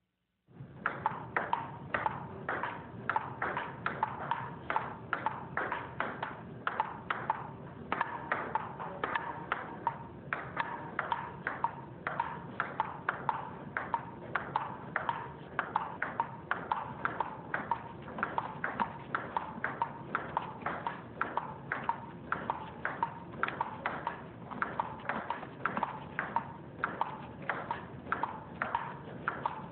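Table tennis ball being hit back and forth in a long unbroken rally, clicking off the paddle and table about two or three times a second.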